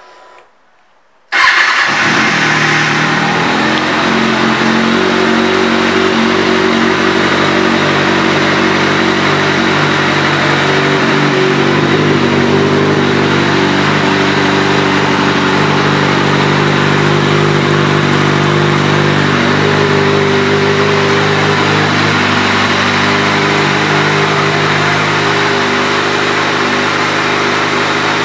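2008 Kawasaki ZX-6R's 599 cc inline-four engine idling steadily through its Yoshimura aftermarket exhaust. The sound cuts in abruptly about a second in.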